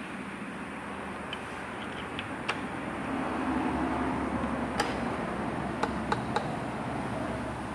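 Scattered sharp metallic clicks and taps of hand tools and engine parts during engine teardown: single clicks about two and a half and nearly five seconds in, then three quick ones about a third of a second apart near the end, over a steady hum of background noise.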